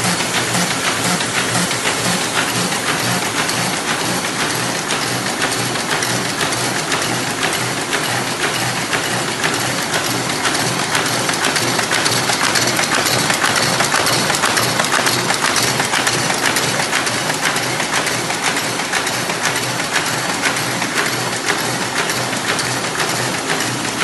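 MBO T52 buckle folding machine with four buckle plates and a knife fold unit, running and folding paper: a steady, rapid clatter of clicks over a constant hiss.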